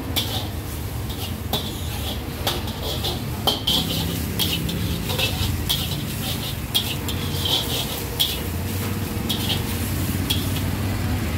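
Metal cooking utensils clinking against cookware in irregular sharp clinks, about one or two a second, over a steady low rumble.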